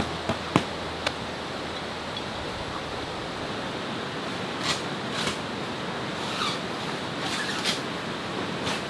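Steady rush of a wide, fast-flowing river. A few sharp clicks in the first second, and a handful of faint short sounds later on.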